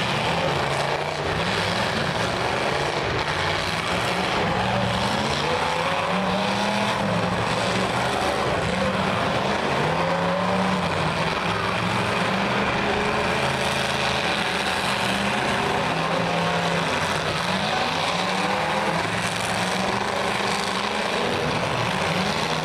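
Several demolition derby car engines running together, revving up and down unevenly over a continuous noisy din.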